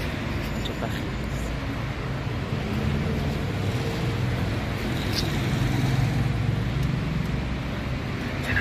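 City street traffic: a steady rumble of road vehicles, with one vehicle's engine growing louder around the middle as it passes.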